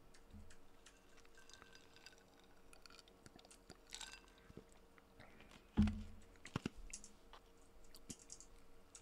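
Quiet desk sounds: a person sipping from a cup about four seconds in, then a single thump and a few sharp clicks, with faint scattered clicks throughout.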